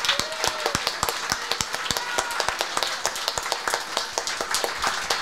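Audience applauding: many hands clapping together in a dense, irregular patter, in praise after a closing call to give praise.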